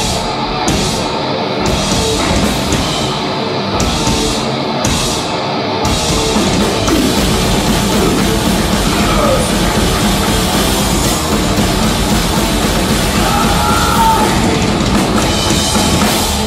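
Thrash metal band playing live: distorted electric guitars, bass and drum kit. For about the first six seconds the band plays short stop-start hits with brief gaps between them, then goes into a dense, unbroken passage that stops abruptly at the very end.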